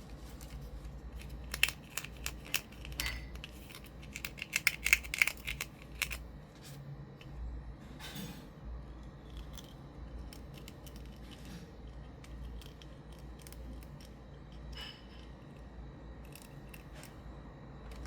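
Scissors snipping at toy packaging: a quick run of sharp snips in the first few seconds, then occasional faint clicks of handling.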